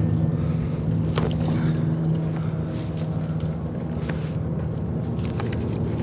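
A steady low drone made of several held low tones, with a few faint clicks over it.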